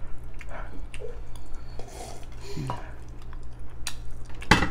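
Mouth sounds of someone sipping milk and smacking her lips to cool the burn of very spicy noodles, with a brief low vocal sound partway through and two sharp clicks near the end.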